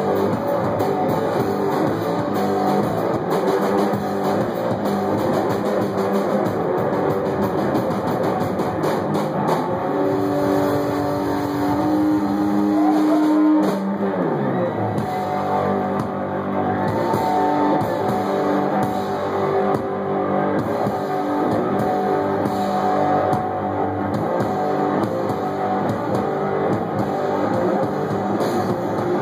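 Live rock band playing: distorted electric guitar over a drum kit. About halfway through, a guitar note slides down steeply in pitch.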